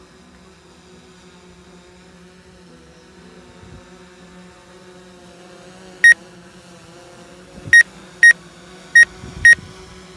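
A DJI Phantom 4 quadcopter's propellers hum steadily as it comes in to land. From about six seconds in, the drone controller gives five short, high electronic beeps at uneven intervals.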